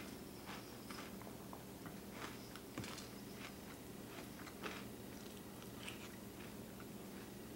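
Close-up chewing of crunchy Cinnamon Toast Crunch cereal in milk: irregular crunches and small clicks, over a low steady hum.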